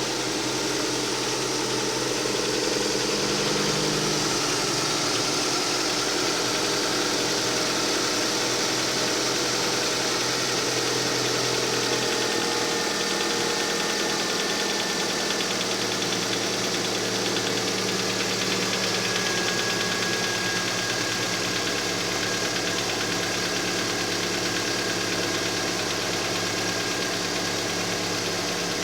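Car engine idling from a cold start with a knock in it, the cold-engine knock the owner is asking about. The idle note shifts slightly about four seconds in and again about twelve seconds in.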